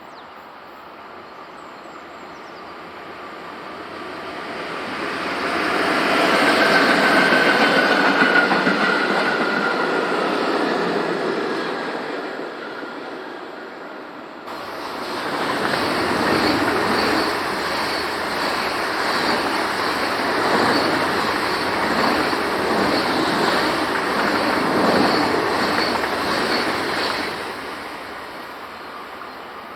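A train passing, its wheels giving a thin squeal for a few seconds in the middle of the pass. After an abrupt cut, a second train passes with steady rolling noise and a regular clicking rhythm of wheels over rail joints, fading near the end.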